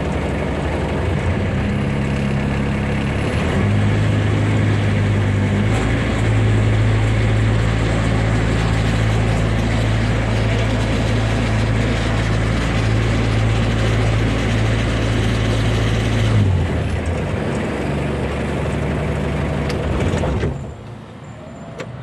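Toyota Tamaraw's 2C four-cylinder diesel engine running at a steady idle, its pitch shifting slightly a couple of times, then cutting off shortly before the end as the key is turned.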